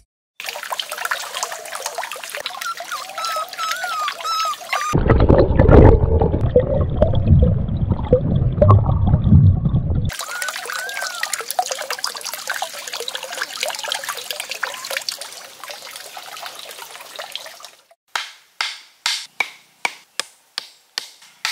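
A steady rushing, water-like noise with a few birds chirping, louder and deeper for about five seconds in the middle. Near the end, sharp wooden knocks about three a second: wooden stakes being pounded into the ground with a stick.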